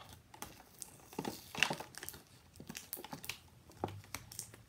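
Fingers and fingernails picking at a toy box's plastic packaging: scattered crinkles and clicks, busiest about a second and a half in.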